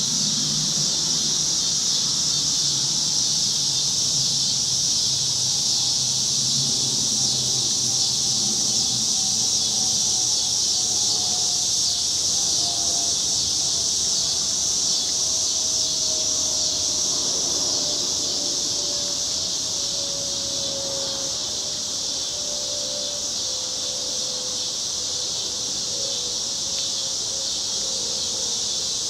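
Chorus of cicadas buzzing in one steady, continuous high-pitched drone that does not let up.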